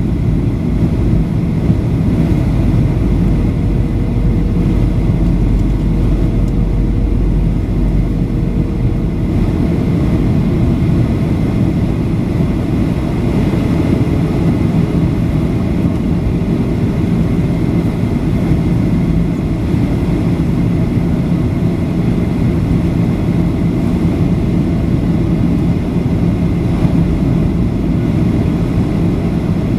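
Steady cabin noise inside a Boeing 737-800 in descent: a dense rumble of its CFM56-7B turbofan engines and rushing air, with a steady low hum. The deepest part of the rumble eases about nine seconds in.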